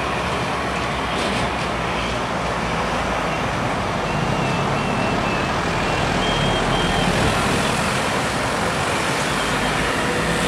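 Slow road traffic led by a Nissan Diesel truck-and-trailer rig: a steady diesel engine and road rumble. A few faint, short high beeps come in a row around the middle.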